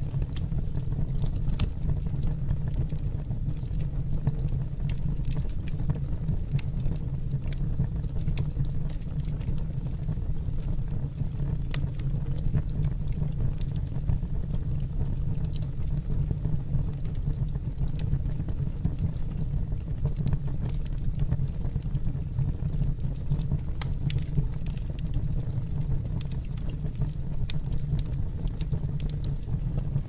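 Wood fire burning: a steady low rumble with sharp crackles scattered through it.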